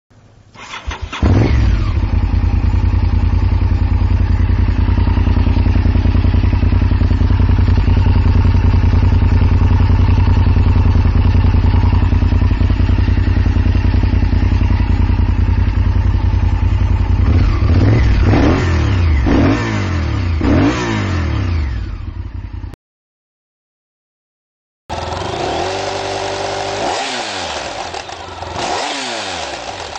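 Honda superbike engines. One comes in about a second in, runs steadily at a loud, even pace, then is blipped up and down a few times before cutting off abruptly. After a two-second gap, a second engine is revved repeatedly, rising and falling in pitch.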